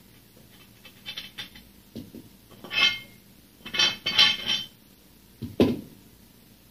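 Metal weight plates and a dumbbell bar clinking and scraping against each other in several short bursts as they are handled, then a dull thud about five and a half seconds in as the weight is set down on the floor.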